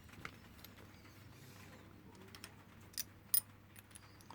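Scattered light clicks and taps of small metal parts and tools being handled, with two sharper clicks about three seconds in.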